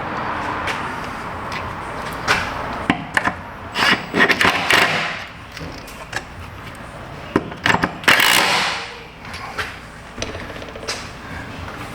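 Hands working on car parts: scattered clicks and knocks as line retainers are fitted, with a cluster of handling noise about four seconds in and a longer scraping rustle about eight seconds in.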